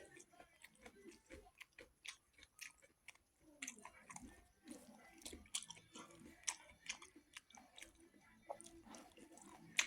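Close-miked chewing of a mouthful of rice and buffalo meat: irregular small wet clicks and smacks, with a short lull about three seconds in.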